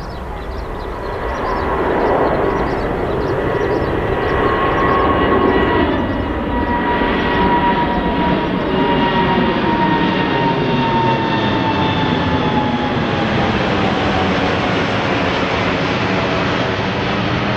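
Rolls-Royce Trent 1000 turbofans of a Boeing 787-8 Dreamliner at climb power as the airliner passes low overhead after takeoff: a loud, steady jet rush with a high whine. The whine slowly drops in pitch in the second half as the plane moves away.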